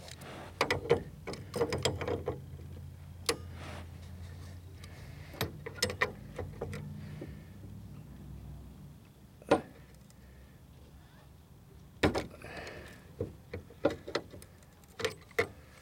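Scattered metallic clicks and knocks of locking pliers and a wrench working the fuel filter's threaded fitting on the steel fuel line, with the sharpest knock about ten seconds in. A low hum sits underneath for the first half and then fades.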